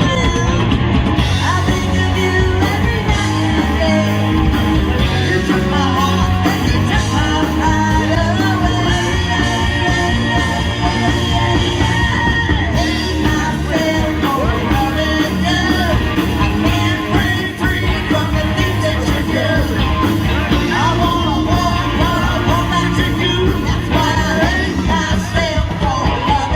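Live band playing a song with a singer.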